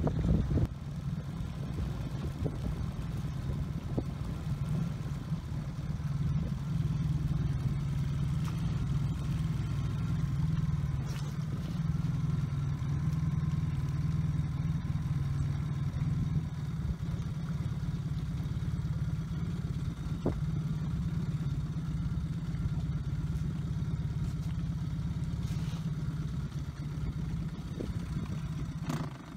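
A small motorboat's engine running steadily at an unchanging pitch, with a few faint clicks; it fades out at the very end.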